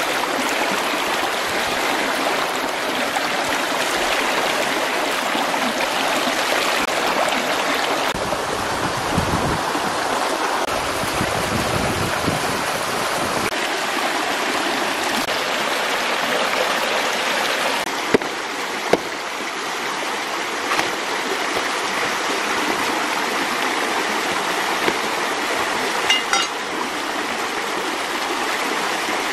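Fast-flowing stream rushing over rocks, a steady even rush of water, with a few sharp knocks about two-thirds of the way through.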